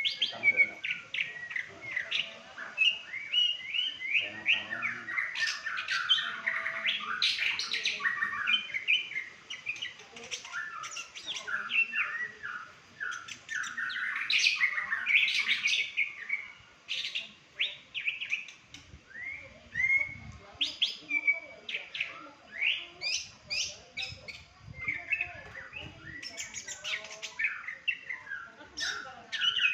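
A songbird singing a long, varied song of rapid chirps and short whistled notes, with hardly a pause.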